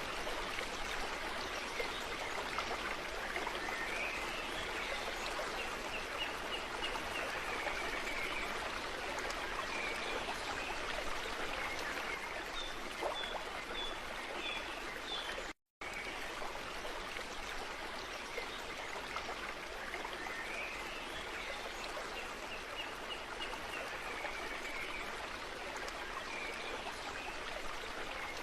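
Stream water flowing and trickling, a steady rush. A high wavering call rises about four seconds in and runs for several seconds, with a few short high chirps later. The sound cuts out briefly about halfway, then the same stretch repeats.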